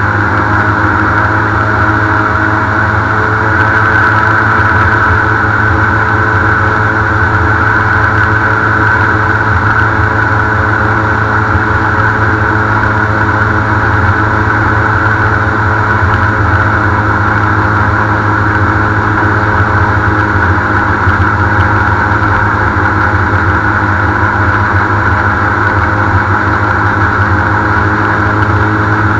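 Airboat's engine and large air propeller running loud and steady as the boat travels at speed across shallow water.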